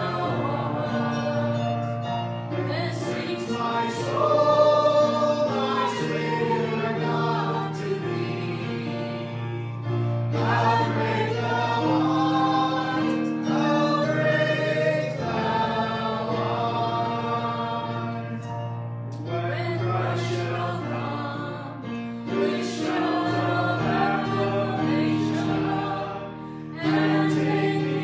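A song of Christian worship music with a choir singing over sustained bass notes.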